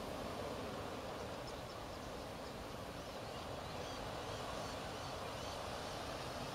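A murmuration of common starlings: scattered faint, short high chirps from the flock over a steady rushing noise.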